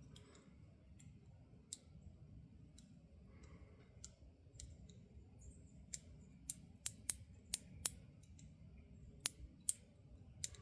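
Worn 1940s Plumb 1/4-inch drive ratchet clicking as it is worked: a few scattered clicks, then about ten sharp clicks at an uneven pace in the second half.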